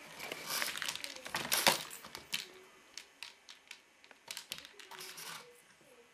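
A plastic ring-track cat toy clicking and rattling as a kitten bats at it, the ball knocking round inside the track and the spring-mounted toy mouse wobbling. Irregular clatter, busiest and loudest in the first two seconds, then scattered clicks.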